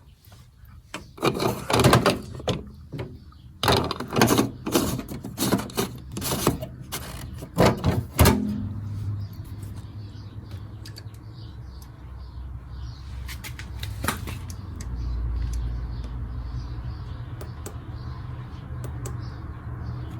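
Miele Meteor 1000 Novotronic washing machine: a run of irregular clunks and knocks for about seven seconds. After that it settles into a steady motor hum, with a deeper rumble swelling in about three-quarters of the way through.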